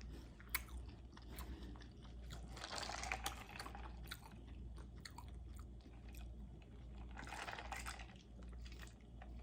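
Close-miked chewing of spaghetti with meat sauce: faint wet mouth clicks and smacks scattered through, with two longer noisy stretches about three seconds in and near the end.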